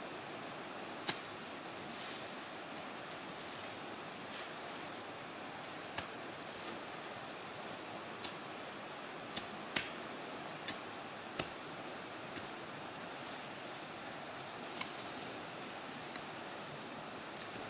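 A hand hoe chopping and scraping into soil and plant roots: sharp clicks and knocks at irregular intervals, the loudest about a second in and around eleven seconds, over a steady hiss.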